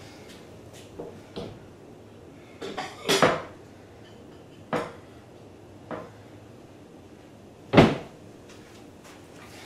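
Kitchen clatter: a series of separate short knocks and clunks, about seven in all, with a quick cluster about three seconds in and the loudest single knock near the end.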